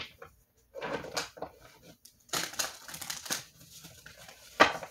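Tarot cards being handled and shuffled, in two rustling bursts, the second longer, then a sharp tap near the end.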